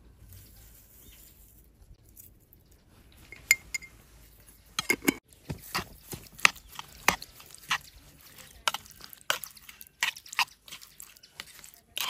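Metal spoon stirring a wet yogurt mixture in a wooden bowl: irregular clicks and knocks of the spoon against the bowl, with wet squelching. It starts about three seconds in and gets busier in the second half.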